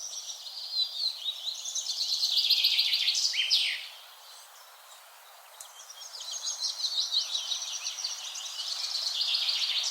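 A bird singing long phrases of rapid, repeated high notes that build in loudness: one song about a second in lasting some three seconds and ending in quick downward slurs, then after a short pause another that runs on to the end, over a faint even hiss of light breeze.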